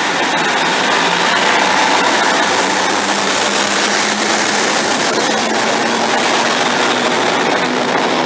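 Diesel multiple unit, a Class 150 coupled to a Class 156, running past close by: steady engine drone mixed with wheel and rail noise, rising a little in the first couple of seconds and then holding.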